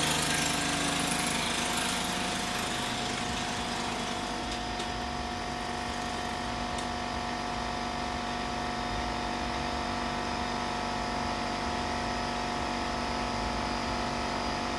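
Small single-cylinder pull-start engine of a freshly built minibike running steadily on its first start after assembly, a little louder in the first couple of seconds.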